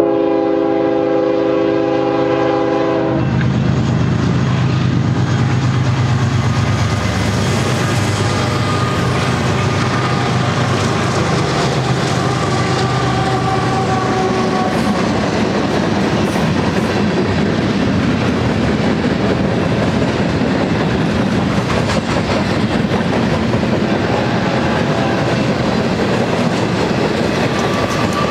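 BNSF GE diesel freight locomotives sound a multi-note horn chord over their engine drone, the horn cutting off about three seconds in. Then the freight train's cars roll past in a steady clickety-clack of wheels over the rail.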